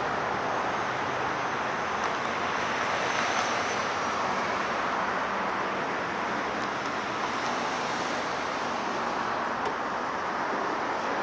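Steady, even wash of distant vehicle noise with no distinct events.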